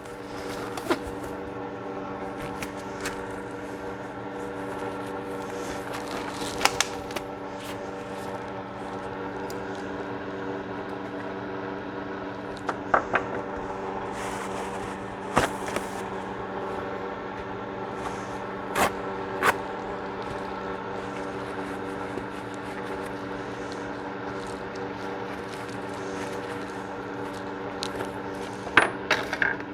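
A steady machine hum made of several constant tones, broken by scattered clicks and light knocks of small objects being handled, a few seconds apart.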